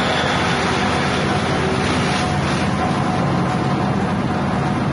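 Grass chopper driven by a 6.5 hp petrol engine, running steadily while elephant grass stalks are fed in and cut up by its blades.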